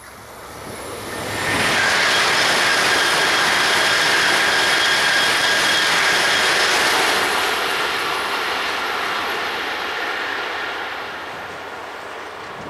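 Eurostar Class 373 high-speed trainset passing at speed: a rushing noise that swells over about a second and a half, holds loud with a high whine for about five seconds, then slowly fades away.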